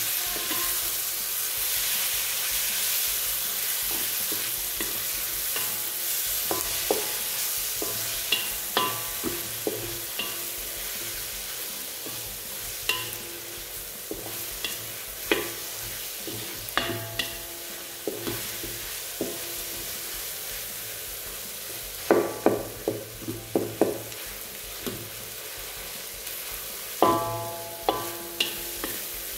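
Jackfruit pieces sizzling in hot oil and spice paste while a spatula stirs them, clinking and scraping against the pan at irregular intervals, with quick runs of clinks near the end. The sizzle eases off gradually.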